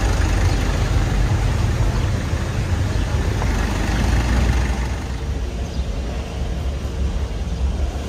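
BMW G 310 GS motorcycle's single-cylinder engine running steadily at low speed, with a rush of wind and street noise over it. It gets a little quieter from about five seconds in.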